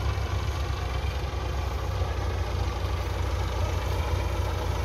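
Belarus 510 tractor's diesel engine running steadily at an even pitch, under load while pulling a mounted potato planter along the ridged rows.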